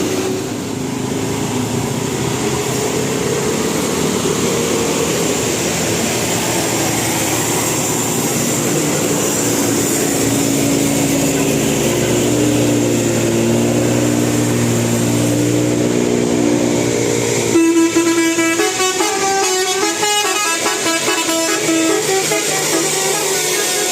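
Bus 'telolet basuri' musical horn playing a tune in short stepped notes over steady vehicle noise. A louder, brighter run of horn notes starts suddenly about two-thirds of the way through.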